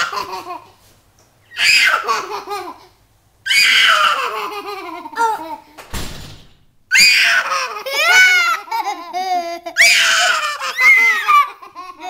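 People laughing in loud, high-pitched peals, about five bursts that each slide down in pitch, with a dull thump about halfway through.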